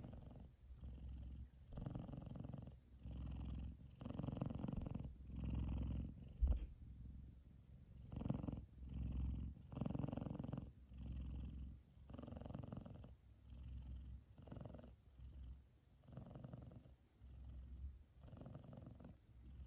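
F2 Savannah cat purring loudly in his sleep, the purr swelling and fading with each breath about once a second. A brief knock comes about six seconds in.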